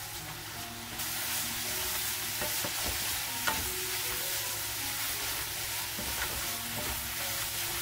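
Fish cake strips and vegetables sizzling in an oiled nonstick wok as a wooden spatula stir-fries them, with a few light scrapes and knocks of the spatula on the pan. The sizzle gets louder about a second in. This is the final tossing of a finished fish cake stir-fry.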